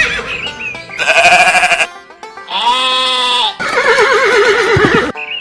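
Three sheep bleats laid over background music, each a loud wavering call about a second long, the last one with a pronounced quaver.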